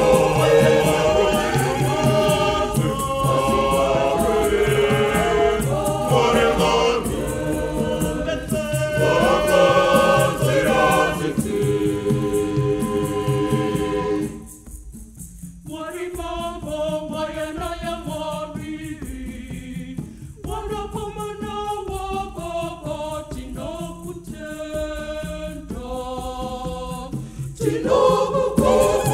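Choir singing a Shona Catholic hymn in harmony, with percussion. About halfway through the sound drops to a quieter, sparser passage, and the full choir comes back in near the end.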